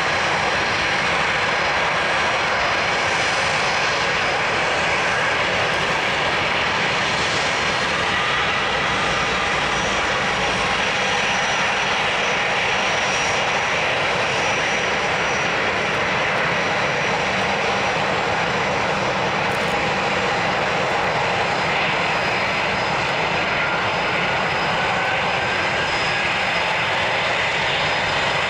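Boeing 737-900ER BBJ's CFM56-7B jet engines running at taxi power as the jet rolls past: a steady jet whine and hiss, with faint tones that drift slowly in pitch.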